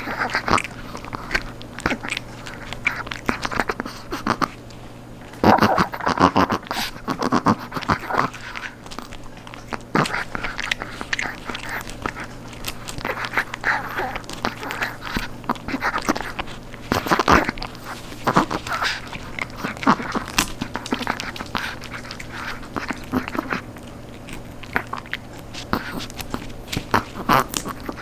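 Short-haired chihuahua gnawing a crunchy dried duck leg treat: irregular crunching and cracking bites, in uneven runs with several louder clusters.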